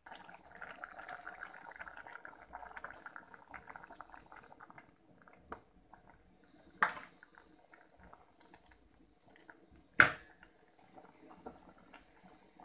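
Water poured from a plastic container into a metal cooking pot of boiled beans, splashing and gurgling for the first four seconds or so. Then two sharp knocks a few seconds apart, the second the loudest, and faint scraping as the beans are stirred in the pot.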